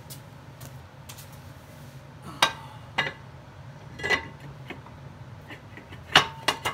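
Metal clinks and knocks as a fourth-gen Toyota 4Runner cast-iron brake rotor is handled and slid over the hub's wheel studs. Three separate knocks come in the middle, then a quick run of clinks with a brief metallic ring near the end.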